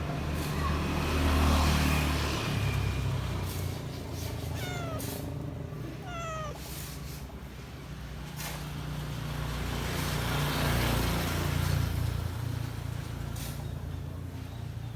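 A domestic cat meows twice, two short falling calls about a second and a half apart, over a steady low rumble of passing traffic that swells twice.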